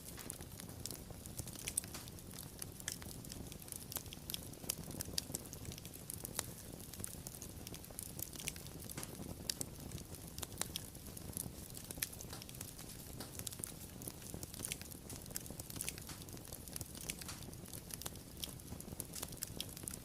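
Wood fire burning: irregular sharp crackles and pops, many a second, over a low steady rumble of the flames.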